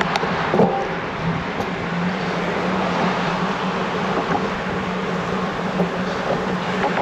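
Road traffic, cars passing on the roadway alongside, heard over a steady rushing noise with a low hum.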